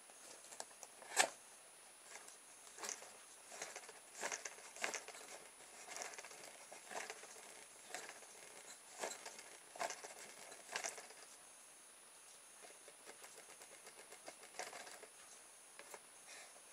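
Irregular small clicks and taps of fingers handling a homemade electric motor, turning its bicycle-spoke rotor and bending the thin wire brush that touches the spoke, while the brush is being readjusted. One sharper click comes about a second in, and the clicks thin out over the last few seconds.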